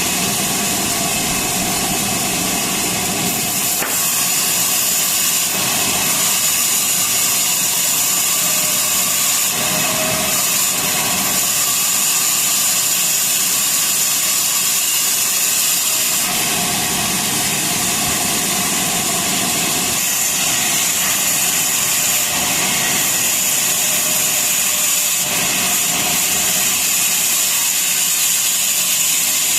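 Sawmill saw running steadily as it cuts through a large wooden log, a dense mechanical noise with a steady high whine over it.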